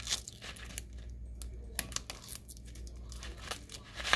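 Self-adhesive vinyl being peeled off its backing sheet while weeding a cut decal, giving irregular crackles and short tearing rasps, with the peeled scrap crinkling in the hand. The loudest snap comes near the end.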